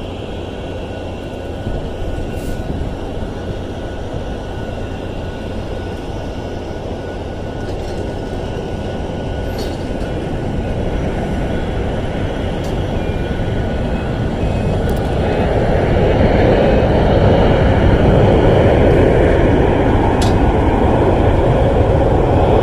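Steady jet-engine roar of a Boeing 777-200ER landing and rolling out on the runway, heard across the apron with the rumble of baggage carts. The roar grows louder about two-thirds of the way through.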